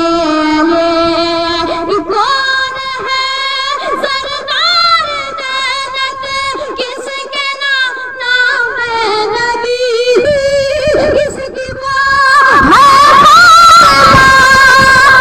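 A boy singing a Urdu devotional naat solo into a handheld microphone, holding long ornamented notes with wavering pitch. The singing gets louder about twelve seconds in.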